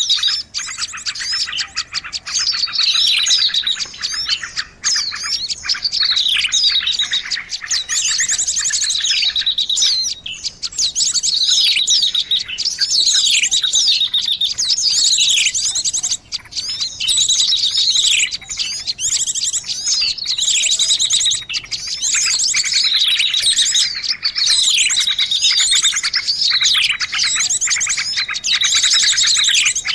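Bird-lure recording of many small birds chirping together: dense, rapid chattering trills mixed with repeated falling notes, without a break, used to call small birds in.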